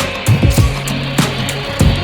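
Background rock music with a driving drum beat.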